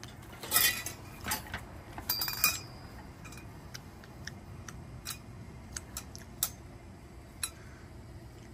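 Metal frame tubes of a Halloween animatronic's stand clinking and knocking as they are handled and fitted together: a scatter of sharp taps, the loudest about half a second in and a cluster around two seconds in.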